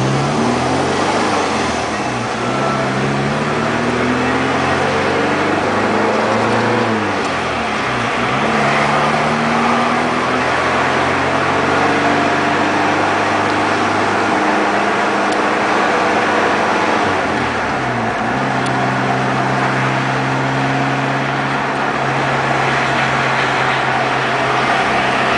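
Car engine heard from inside the cabin, rising in pitch as the car accelerates and dropping back at each gear change, over steady road and tyre noise. From about two-thirds of the way in it holds a steady pitch at cruising speed.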